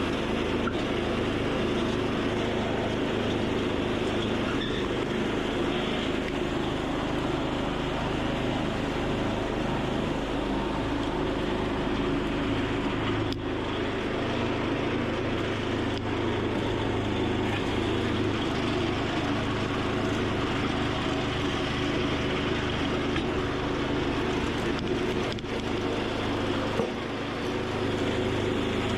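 A small engine running steadily at an even speed, with a brief dip in level and a click near the end.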